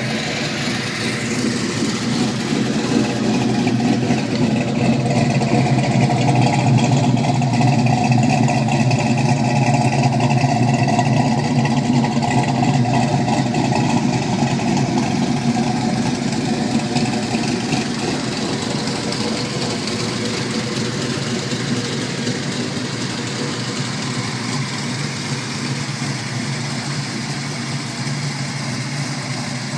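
Big-block 454 V8 of a 1970 Chevelle SS, running through Hooker headers and two-chamber Flowmaster mufflers, idling steadily. It grows a little louder a few seconds in, then eases off slightly.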